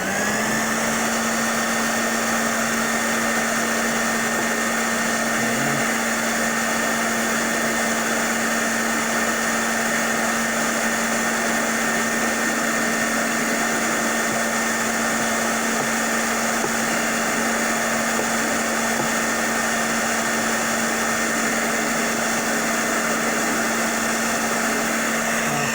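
Handheld blow dryer running steadily: a constant motor hum with a higher whine over the rush of air.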